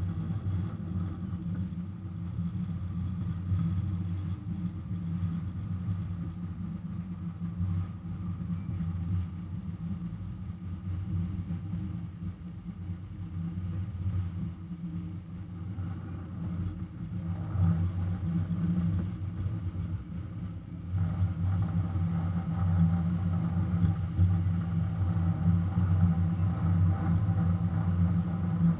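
Miniature ride-on locomotive's engine running steadily as it pulls the passenger train, a low hum that gets louder about two-thirds of the way through.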